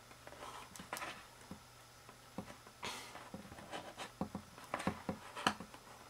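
Irregular small metallic clicks and scrapes of a disc-detainer pick turning the discs inside a Sobo disc-detainer padlock while tension is held, with a few louder ticks about three and five seconds in.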